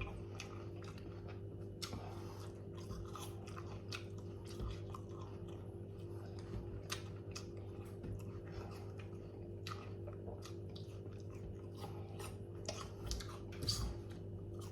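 A person chewing and crunching food close to the microphone, in irregular short crunches, over a steady low electrical hum.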